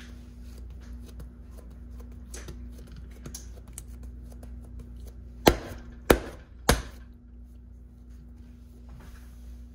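Hands working bun dough on a granite countertop: faint soft taps, then three sharp knocks about half a second apart, over a steady low hum.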